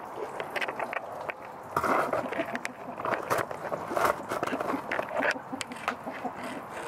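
Irregular knocks, clicks and rustling of hands-on handling work, with the sharpest knocks about two and four seconds in.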